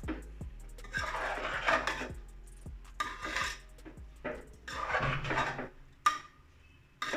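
A spoon stirring soaked rice and peas in a pressure cooker pot: a few scraping strokes about every two seconds, with light clinks against the pot.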